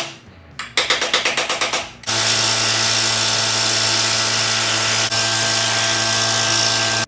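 A fast run of hammer blows on sheet steel, about nine a second, as a patch panel is planished into a dome. About two seconds in, an electric power tool starts and runs steadily with a low hum, then cuts off abruptly at the end.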